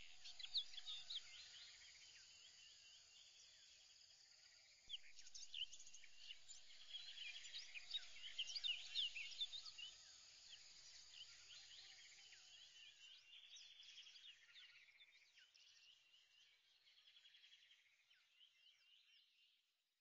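Faint chorus of birds chirping: many short, high calls overlapping, swelling about five seconds in and then fading out toward the end.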